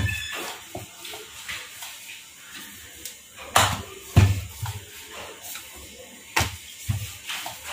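Rolling pin working paratha dough on a round rolling board, with a handful of sharp, irregular knocks as the pin and board bump against the counter.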